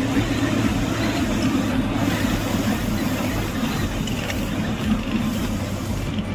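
Steady engine hum and road and wind noise heard from inside a moving bus on a highway.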